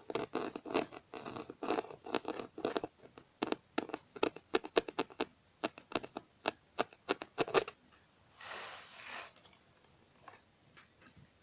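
Computer keyboard keys tapped and clicked, first in quick busy runs, then as separate clicks about two or three a second. Near the end the clicking stops and a short rubbing, scratching sound follows.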